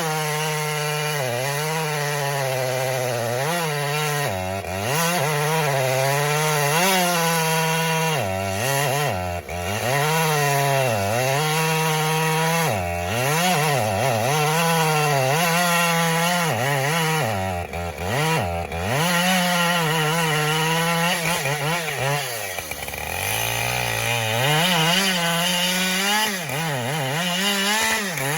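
Husqvarna two-stroke chainsaw cutting wood at high revs, its pitch dropping sharply and picking back up again and again as the chain bogs under load in the cut.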